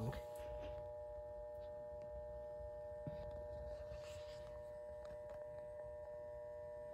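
Steady electrical hum with several high, even tones from a 100 W mercury vapor lamp and its ballast, running while the arc is still warming up and has not yet settled into a stable arc.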